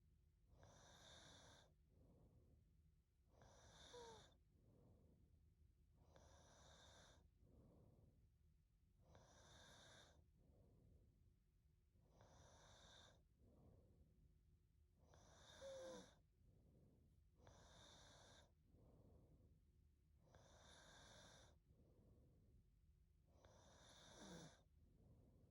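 A sleeping young woman breathing slowly and faintly with soft snoring, about one breath every three seconds. Three of the breaths carry a brief whistle that falls in pitch.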